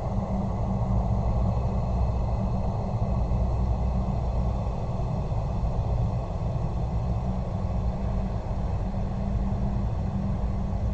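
Horror ambience drone: a steady, dense low rumble with faint high sustained tones above it, unchanging throughout.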